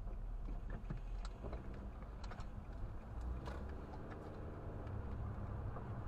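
A car driving at low speed, heard from inside the cabin: a steady low rumble of engine and tyres, with scattered light clicks. A faint humming engine note rises and falls in the middle.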